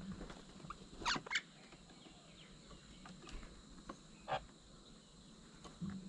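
Mynas at a bird table giving a few short calls: two close together about a second in and another just past four seconds. Soft low knocks near the start and end.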